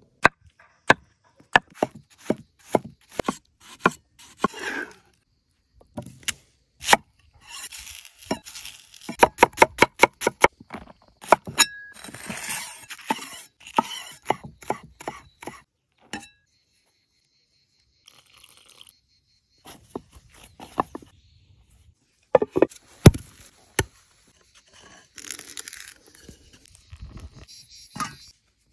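Large knife chopping vegetables on a wooden cutting board: single sharp strokes at first, then a fast run of chops. Scraping follows, and later a few heavy knocks.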